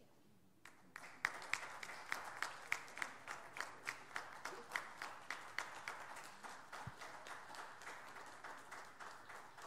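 Audience applauding: many irregular hand claps start about a second in and slowly die away.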